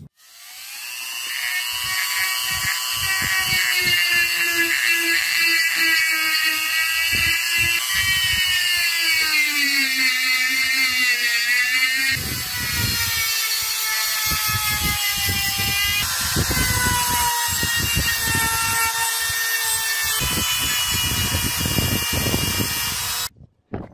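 Handheld rotary tool spinning a sanding drum against the steel lever of a nail clipper: a high motor whine that winds up over the first couple of seconds, wavers and dips in pitch as the drum bears on the metal, with scratchy sanding noise, and cuts off suddenly near the end.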